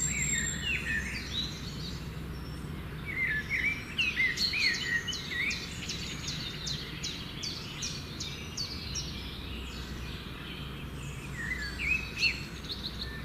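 Wild birds calling: short, swooping chirps and a quick run of sharp high notes in the middle, over a steady low background noise.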